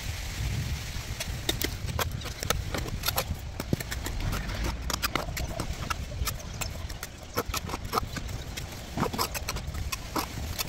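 Bricklaying: a string of irregular clicks and hollow knocks as hollow clay bricks are set in mortar and tapped into place with a steel trowel, over a low rumble.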